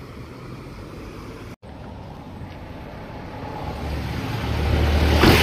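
A car engine running with road noise, swelling louder over the last two seconds, with a sharp knock near the end.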